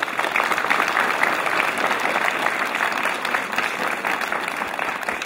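Audience applauding: a dense, even patter of many hands clapping, which fades out near the end.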